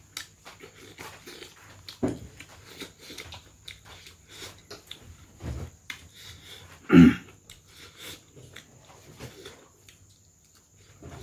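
Close-miked eating mouth noises: chewing and lip smacking over a mouthful of rice and meat, with many small wet clicks. One louder smack stands out about seven seconds in.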